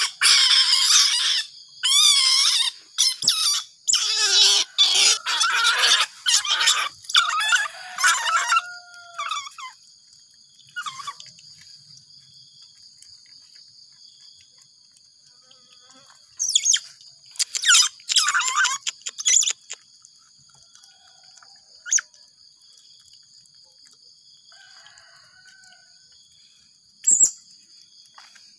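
Baby Asian small-clawed otter squealing in rapid, wavering high-pitched calls, begging as it is hand-fed fish. The squeals stop after several seconds and a second burst comes about halfway through.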